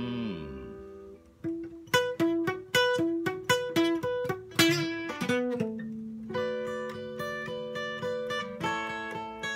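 Acoustic guitar played solo, with no singing: single notes picked about three a second for a few seconds, then a low note left ringing under lighter picked notes.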